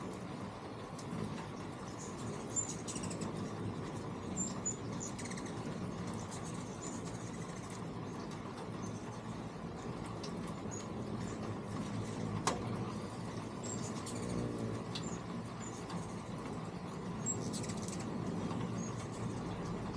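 Hummingbirds chipping: many tiny, high, short chirps scattered through a steady low hum, with one sharp click about halfway through.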